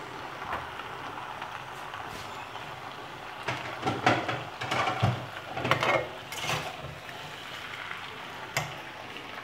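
A metal spatula scraping and knocking against a wok as chow mein noodles are tossed and stir-fried, over a steady frying sizzle. The clatter comes in a run of strokes a little past the middle, with one more knock near the end.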